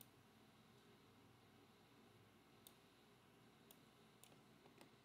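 Near silence with a handful of faint computer mouse clicks, about five, the last few a second or less apart, over a low room hiss.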